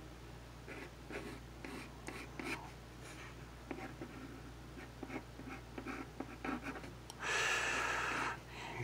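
Pencil scratching on sketch paper on a clipboard in short, irregular strokes, several a second. About seven seconds in, a louder breath-like rush lasts about a second.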